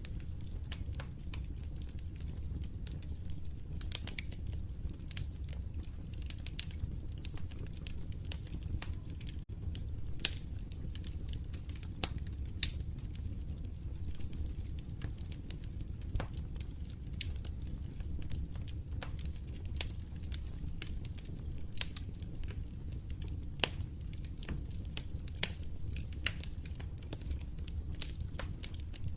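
Log fire crackling in a fireplace, with many small irregular pops and a few sharper ones, over a steady low rush.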